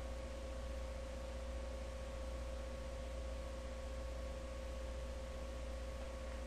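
Steady electrical hum and hiss, with a faint constant whine. There are no other events.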